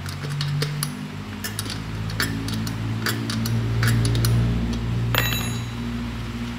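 Small metal tool clicking and clinking against a motorcycle wheel's valve stem and steel rim, about a dozen sharp clicks with one ringing clink about five seconds in. Under it runs a steady low hum that swells in the middle.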